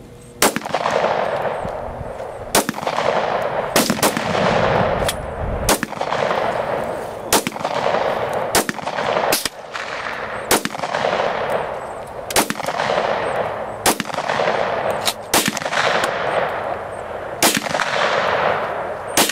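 A firearm shooting steadily, one shot at a time, about eighteen shots roughly a second apart. Each report is followed by a long echo that dies away before the next shot.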